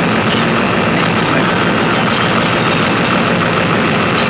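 An engine idling steadily, a constant loud mechanical drone with no change in speed.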